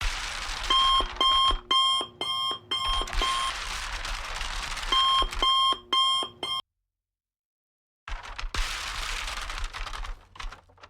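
Electronic alarm beeps repeating about two a second over a steady hiss, in two runs, cut off by a sudden gap of silence about two-thirds of the way through, after which only the hiss returns.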